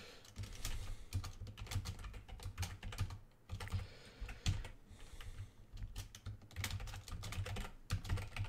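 Typing on a computer keyboard: runs of quick key clicks, with a brief pause about three seconds in.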